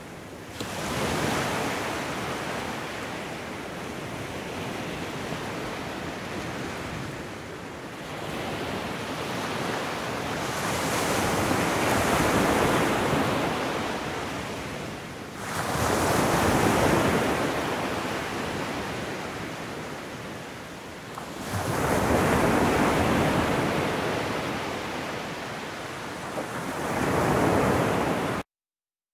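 Water of a boulder-strewn mountain stream rushing over the rocks: a steady noise that swells and fades several times and cuts off suddenly near the end.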